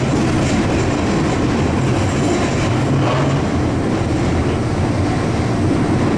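Sendai Subway Tozai Line 2000 series linear-motor train running at speed through a tunnel, heard from the cab: a steady rumble of wheels on rail.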